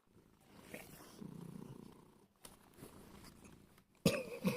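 Domestic cat purring, a low rumble that swells and fades with its breathing. A much louder sound starts just before the end.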